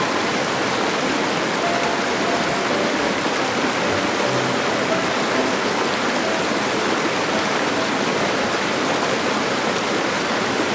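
A small mountain creek rushing over rocks through a shallow riffle: a steady, even rush of white water.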